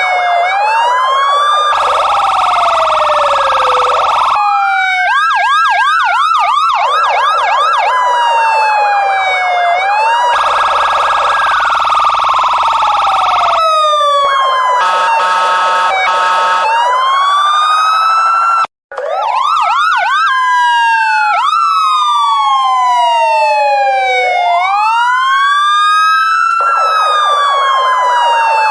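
Police car siren cycling through its patterns: slow rising-and-falling wail, a rapid yelp, and stretches of a steady, blaring horn-like tone. It cuts out for an instant about nineteen seconds in, then resumes.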